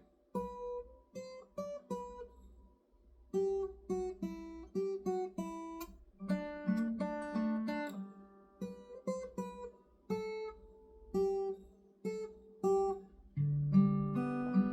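Acoustic guitar playing an instrumental break between sung verses: a plucked single-note melody over bass notes, turning to fuller strummed chords near the end.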